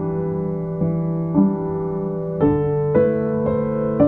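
Soft background piano music, sustained notes changing every second or so.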